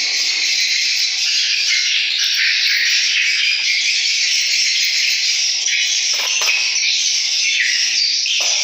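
Recorded swiftlet calls playing from swiftlet-house lure speakers: a dense, continuous high-pitched chirping twitter.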